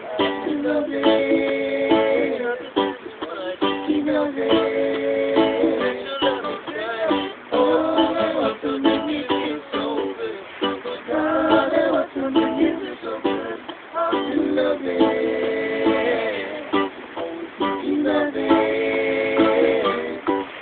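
Live acoustic jam: ukulele strumming chords in a steady rhythm, with an acoustic guitar alongside.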